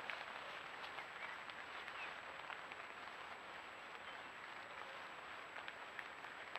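Steady patter of rain falling on leaves and the forest floor, with individual drops landing close by as sharp ticks.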